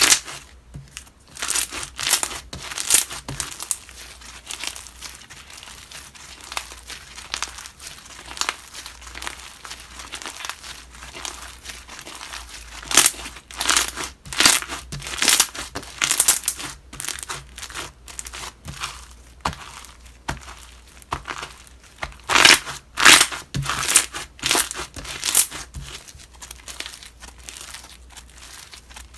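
Slime being squished, pressed and stretched by hand, giving irregular crackling and popping sounds that come in thicker clusters now and then.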